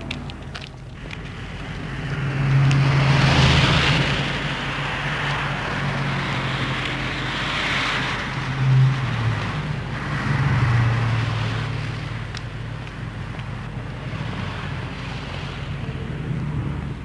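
An engine running with a steady low hum and a rushing noise, growing louder twice.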